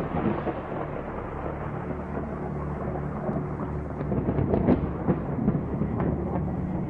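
Thunder sound effect: a rolling rumble with several sharp cracks between about four and six seconds in, over a low steady hum.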